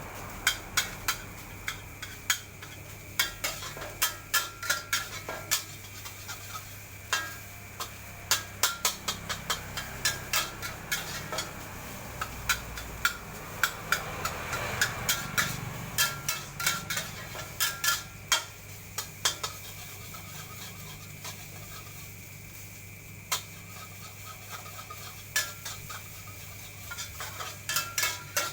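Metal spatula clanking and scraping against a wok in quick, irregular strikes as fried rice is stir-fried, over a steady low hum.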